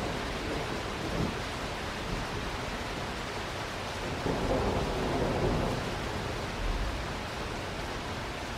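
Steady rain during a thunderstorm, with a rumble of thunder swelling about halfway through and dying away a second or two later.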